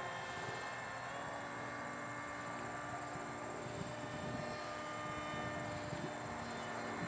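Electric motor and small 6x4 pusher propeller of a radio-controlled foam model jet in flight, a steady whine that shifts slightly in pitch as the throttle and distance change.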